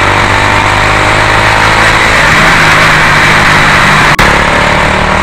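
Honda RS125 FI's single-cylinder 125 cc engine running steadily while riding, under a heavy rush of wind on the microphone. A brief click about four seconds in.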